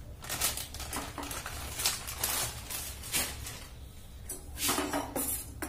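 A steel spoon clinking and scraping against a stainless steel pot as flour is spooned and shaken into it, in scattered short knocks.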